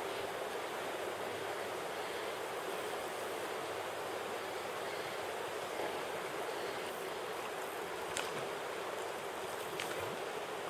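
River current rushing steadily, an even hiss of flowing water, with a couple of faint ticks near the end.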